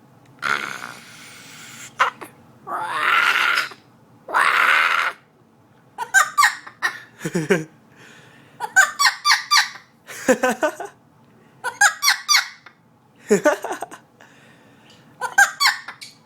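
Blue-fronted Amazon parrot babbling: three harsh, breathy squawks in the first five seconds, then bursts of quick, chattering squeaks, several with a sliding drop in pitch.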